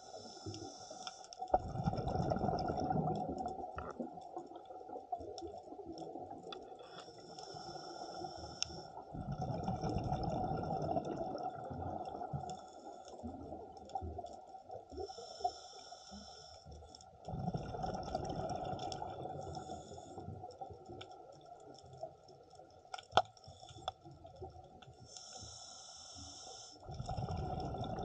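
Scuba diver breathing through a regulator underwater: a hiss on each inhale, then a burst of exhaled bubbles rumbling past on each exhale, about four breaths in all. A few sharp clicks fall between breaths near the end.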